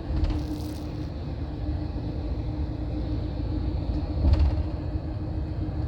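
Steady low rumble of a Greyhound coach riding along the highway, heard from inside the cabin, with a constant hum over it. There is a brief louder bump about four seconds in.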